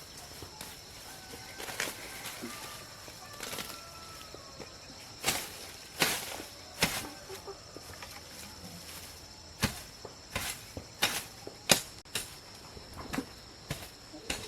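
About ten sharp strikes at an uneven pace from a hand tool chopping into the ground, coming closer together in the second half.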